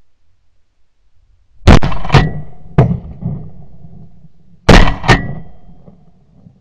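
Shotgun blasts at passing ducks: two quick shots, then a fainter third about a second later, then two more quick shots about two seconds after that, each trailing off in a rolling echo.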